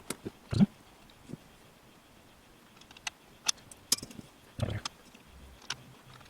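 Scattered light clicks and knocks of screws, a screwdriver and small parts handled on a speedometer and instrument cluster housing during reassembly, with a duller knock about half a second in and another about four and a half seconds in.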